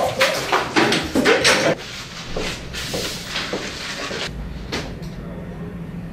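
A quick run of loud, sharp knocks and clatter for under two seconds, then a few softer knocks over a low steady hum.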